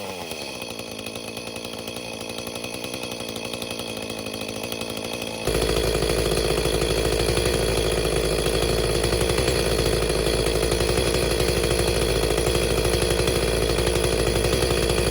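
Echo two-stroke gas chainsaw running: it settles to a steady idle, then about five seconds in jumps abruptly to a much louder steady run that holds to the end.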